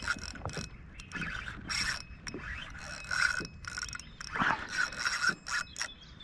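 Fishing gear being handled in a kayak: irregular knocks and scrapes against the hull, with the mechanical clicking of a fishing reel as the rod is worked after a bite on the float.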